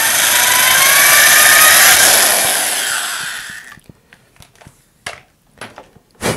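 Cordless drill with a 1/4-inch bit boring out a hole in a model rocket's wooden bulkhead, its motor whine rising in pitch as it runs, stopping a little under four seconds in. Then a few light knocks and clicks of handling, the sharpest near the end.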